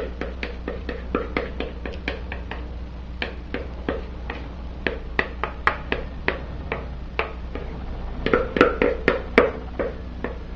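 Utensil clicking and tapping against a mixing bowl, several irregular taps a second with a louder flurry near the end, as cake batter is scraped and poured out of the bowl into a cake tin. A steady low hum runs underneath.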